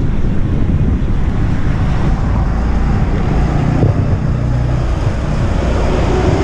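Wind buffeting the microphone of a rider on a moving bicycle: a loud, steady low rumble.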